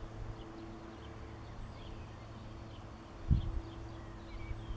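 Small birds chirping repeatedly over a steady low hum, with one brief thump about three seconds in.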